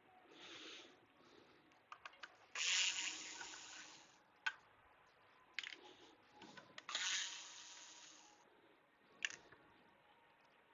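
Small computer parts being handled during disassembly of a fanless PC: scattered light clicks and taps, with two scraping, sliding sounds of about a second and a half each, about three seconds and seven seconds in.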